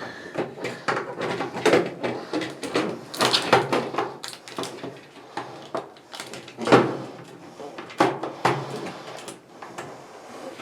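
Irregular plastic clicks, knocks and rattles from a replacement lid switch being pushed and fitted into place in a washing machine, with one louder knock about two-thirds of the way through.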